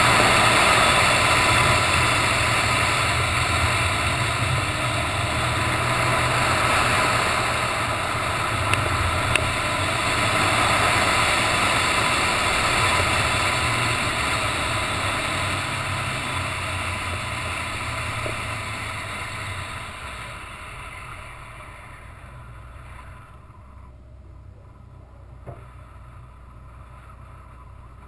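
Subaru BRZ's flat-four engine running with a loud rush of wind and road noise, fading away about two-thirds of the way in as the car slows, leaving a quiet low engine hum at crawling speed.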